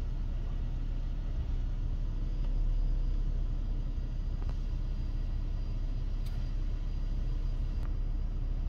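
Steady low vehicle rumble, with a few faint clicks near the end.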